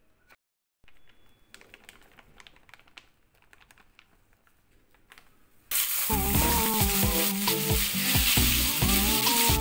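Pork steak frying in hot oil in a nonstick wok: a loud, steady sizzle that starts suddenly about six seconds in. Before it there are only faint clicks and taps.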